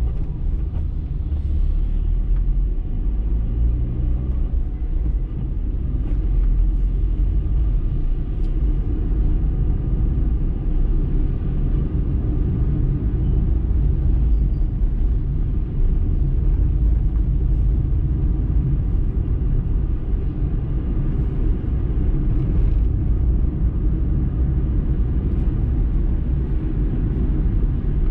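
Car's engine and tyre rumble heard from inside the cabin while driving in town traffic, a steady low drone. The engine note rises briefly near the start as the car speeds up.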